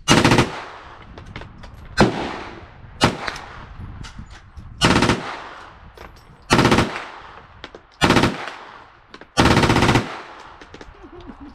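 9mm AK-pattern carbine firing seven rapid strings of shots, each a quick run of cracks about a third to half a second long, the last one the longest. The gun is feeding and cycling the ammunition cleanly.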